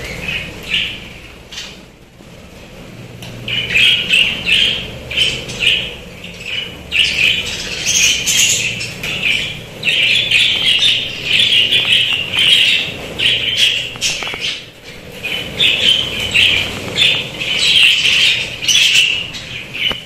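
A flock of caged budgerigars chattering: a dense run of quick chirps and warbles that thickens about three seconds in and keeps going.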